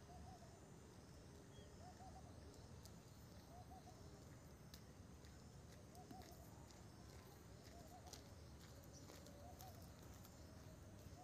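Near silence: faint outdoor ambience with a soft call repeating about every two seconds and a few faint ticks.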